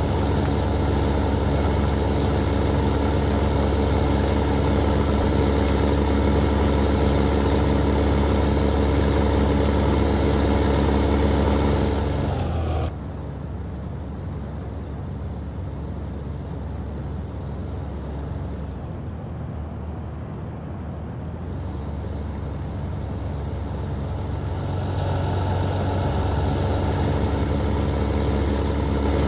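Ford/New Holland 8970 tractor's six-cylinder diesel running steadily while ploughing. About twelve seconds in its note drops suddenly to a lower, quieter level, then builds back up near the end.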